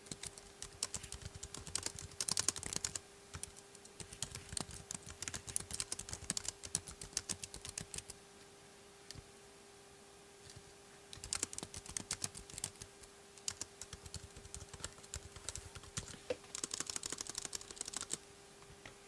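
Typing on the plastic keys of a Chesona budget Bluetooth iPad keyboard: quick runs of key clicks, with a break of about three seconds midway. A faint steady hum sits underneath.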